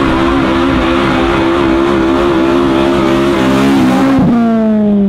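Car engine held at high revs during a burnout, over the hiss of spinning tyres. About four seconds in the revs fall away as the throttle is released.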